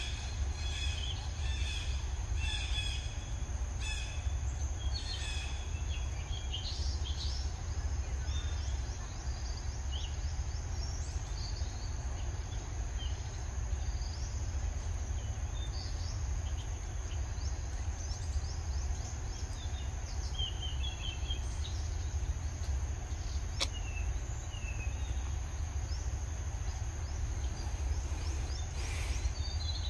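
Forest ambience: many short bird chirps, busiest in the first several seconds, over a steady high-pitched insect drone. A low rumble of wind on the microphone runs underneath, with one sharp click about three quarters of the way through.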